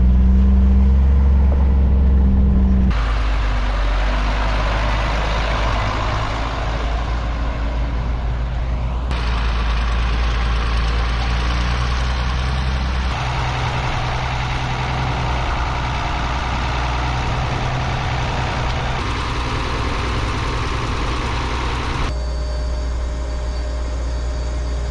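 Vehicle engines running steadily, heard in several shots cut together, so the engine sound and background noise change abruptly about five times.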